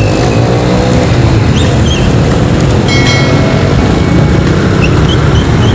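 Motorcycles and motor scooters passing close by on the road, engines running over a steady low rumble, one rising in pitch as it pulls away in the first second. A brief high tone sounds about three seconds in.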